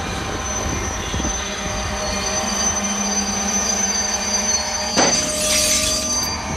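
Diesel freight train running past, engines droning under a steady high wheel squeal. A sudden burst of hiss comes about five seconds in and is the loudest moment.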